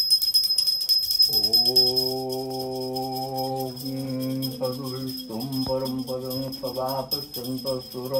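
Devotional music: rapid jingling bells and a steady drone, with a long held note entering about a second in. From about halfway, a voice sings a Hindu chant.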